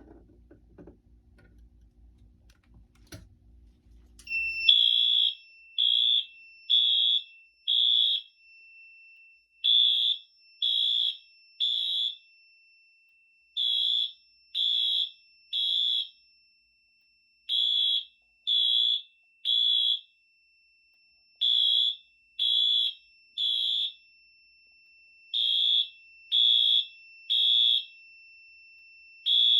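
Fire alarm sounder starting about four and a half seconds in during a panel test. It sounds the temporal-three fire evacuation pattern: groups of three high beeps, each about half a second long, with a pause between groups. A faint steady high tone runs alongside the beeps.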